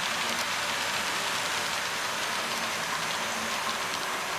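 HO-scale freight train rolling past: a steady hiss and rumble of the cars' wheels running on the model track.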